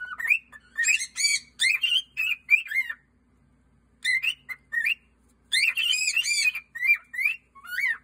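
Male cockatiel singing: a run of quick whistled notes that rise and fall, in two phrases with about a second's pause between them.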